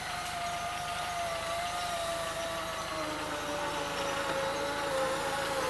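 Land Rover Defender's engine and drivetrain labouring under load in deep mud, a steady whine that slowly falls in pitch as the revs sag.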